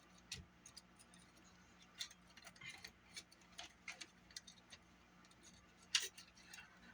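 Small, irregular clicks and taps of a hand tool against the small plastic and metal parts of a Sony Walkman cassette mechanism as it is taken apart, with a sharper click about six seconds in.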